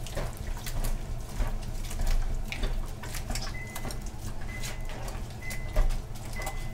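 Wet squishing and splashing as fine seaweed (maesaengi) is kneaded and rubbed by hand with coarse salt in a wet plastic colander in a sink, in short irregular bursts. A faint high beep repeats about once a second through the second half.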